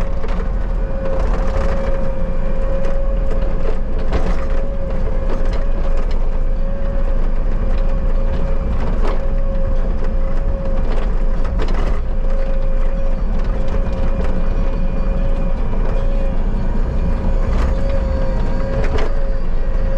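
Bobcat skid steer running under work, a low engine rumble with a steady whine held throughout and occasional sharp clunks.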